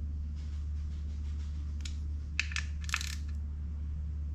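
A few light metal clinks, a wrench being handled against metal parts just after the oil filter cover bolts are snugged: one about two seconds in, then a quick cluster a moment later, over a steady low hum.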